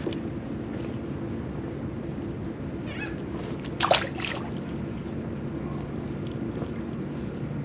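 Steady low hum of a boat motor over water noise, with one short, sharp noise about four seconds in.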